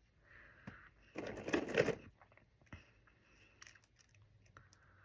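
Small plastic hinge toy pieces being handled and snapped together: a second-long rustle of plastic pieces rubbing about a second in, then scattered small clicks.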